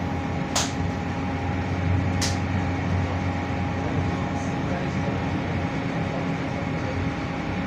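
Tram running along the track, heard from on board: a steady low rumble with a constant electrical hum. Two short hisses come about half a second and two seconds in.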